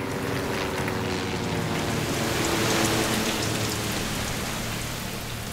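Low-flying fire-bombing plane passing overhead, its engine droning and fading away over the first three or four seconds, while its drop of fire retardant comes down through the tree canopy as a broad rushing hiss that is loudest two to three seconds in.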